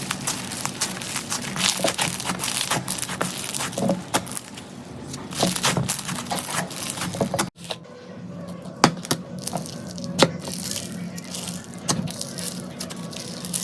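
Slime being worked by hand, giving a dense run of sharp crackling clicks and pops. The sound drops out abruptly about halfway through, then similar crackles resume, sparser and with a few louder pops.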